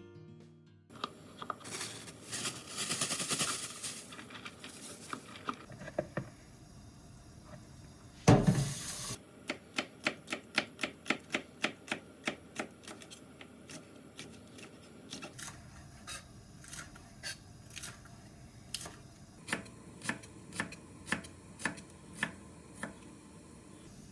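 Kitchen knife chopping on a cutting board: a rustle, one heavy thud, then a run of about three quick, even chops a second, slowing to scattered chops near the end.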